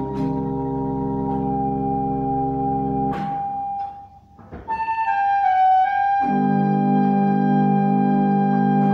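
Organ played four hands at one console, holding sustained chords over a deep bass. About three seconds in the bass and chord drop away to a single held high note and a brief near-pause. Then new chord notes come in one by one, and the full chord with deep bass returns about six seconds in.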